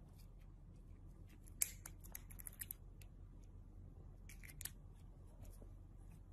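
Quiet room with a few small, sharp clicks or snips: a cluster from about a second and a half to nearly three seconds in, and another near four and a half seconds.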